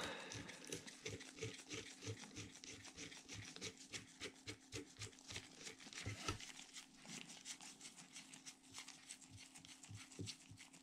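Faint, irregular metallic clicks and rubbing as a lock nut is threaded by hand onto the axle of a Favorit coaster-brake rear hub, a thin cone wrench held against it. A faint steady hum runs underneath.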